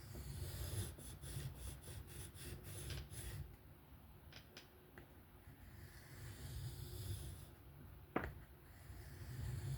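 A folding knife's 154CM steel blade stroked freehand across an Atoma diamond sharpening plate. A run of quick rasping passes comes in the first three seconds or so, then softer passes, with one sharp click about eight seconds in.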